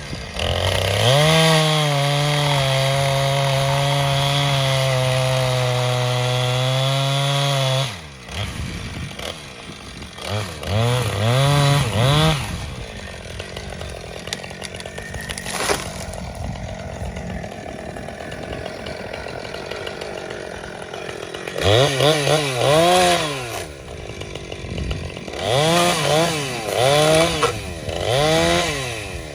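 Husqvarna 455 Rancher two-stroke chainsaw held at steady full throttle for about seven seconds, then dropping to idle. It is revved briefly a few seconds later, idles for a long stretch, then is blipped again and revved in quick bursts about once a second near the end.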